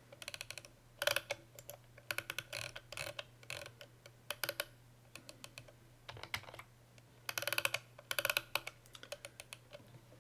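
Computer mouse and keyboard clicking: short runs of rapid, even clicks with scattered single clicks between them, heard while the 3D view is zoomed.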